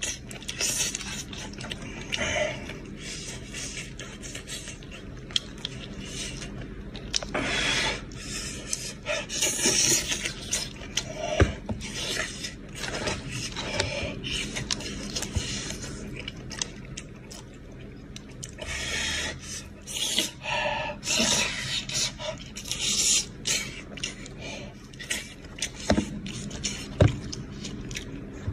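Close-up eating sounds: a cooked goat's head being torn apart by hand, with wet chewing and slurping in many short, irregular bursts.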